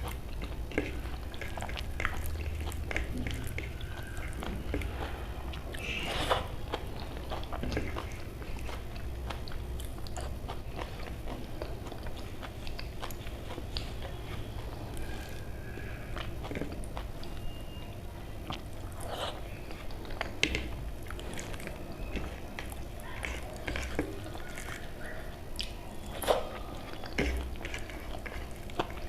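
Close-miked eating sounds of a person eating daal khichdi: chewing and lip-smacking, with many short, irregular wet clicks over a low steady hum.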